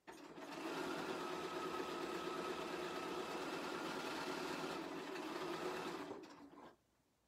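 Bernina sewing machine running at a steady speed, stitching fabric over cording to make piping. It slows and stops about six seconds in.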